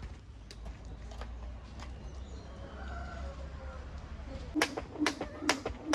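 Skipping rope slapping paving stones, with the thud of sneakers landing on each jump, about two a second, starting about four and a half seconds in after a faint low background rumble.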